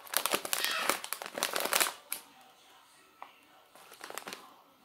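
A large plastic bag of crisps crinkling as it is handled and waved about. There is a dense crackle for about two seconds, then a shorter, quieter bout near the end.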